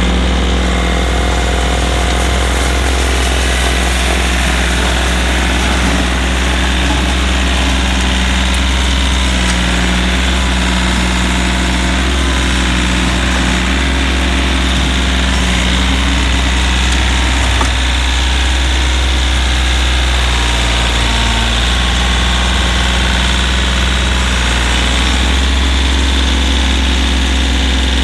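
Kioti 3520 compact tractor's diesel engine idling steadily, a constant low hum.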